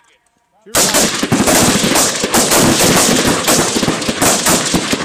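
Several carbines firing at once, rapid and overlapping shots from a line of shooters starting about a second in and going on without a break.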